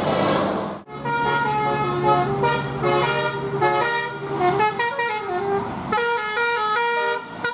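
Bus 'telolet' horn of the Basuri type, a multi-tone electric air horn, playing a quick tune of held notes that step up and down in pitch. A bus engine runs underneath, and the sound drops out briefly about a second in.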